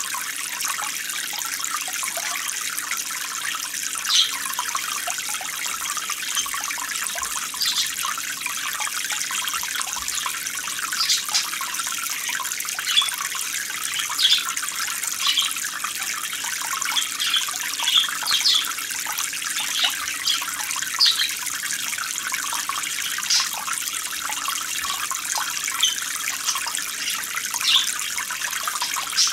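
Steady running water: an even splashing hiss with small gurgles and drips scattered through it.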